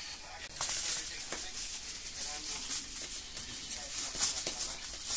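Crinkling and rustling of a foil-wrapped packet and a plastic bag being handled: a quick, irregular run of crackles that starts about half a second in.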